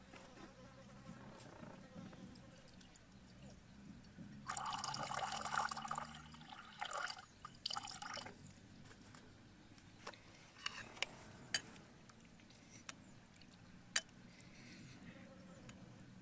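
A thin stream of water poured from a height into a ceramic mug, splashing in a loud stretch that starts about four seconds in, then breaking off and resuming twice. A few sharp clicks follow later.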